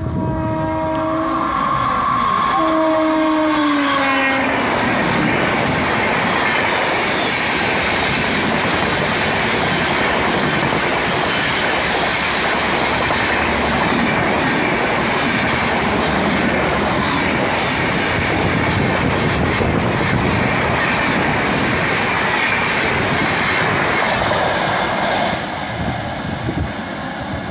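An Indian Railways express locomotive sounds its horn in two blasts, the second sliding down in pitch at its end. Then the train of LHB coaches runs past close by with a loud, steady rush of wheel and rail noise, which drops a little near the end.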